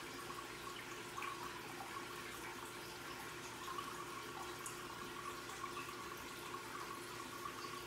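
Aquarium filter water trickling and bubbling steadily, with small scattered drips and a steady hum underneath.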